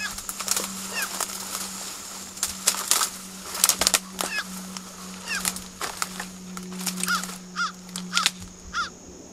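Footsteps crunching through dry brush and leaves, the loudest crackles about three to four seconds in, while a bird gives short repeated calls that come every half second or so near the end. A steady low hum runs underneath.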